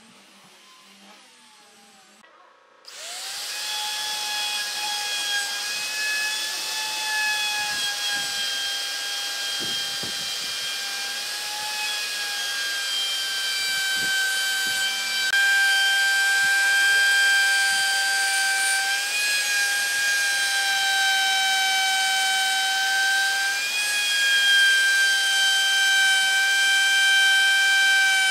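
Handheld plunge router starting up about three seconds in, spinning up quickly to a steady high whine and running as its bit cuts a shallow recess into a wooden tabletop. The pitch wavers slightly as the cut loads the motor.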